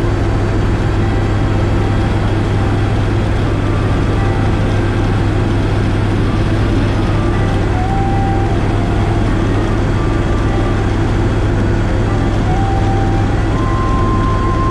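Helicopter engine and rotor noise heard from inside the cabin: a loud, steady drone with a strong low hum and no change in pitch or level.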